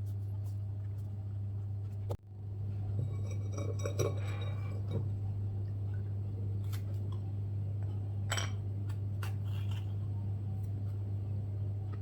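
Light clinks and taps of small hard objects being handled over a steady low hum, with a brief dropout about two seconds in.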